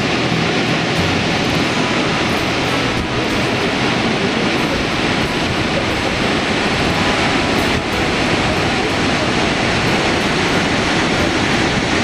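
Stigfossen waterfall rushing: a loud, steady noise of falling white water.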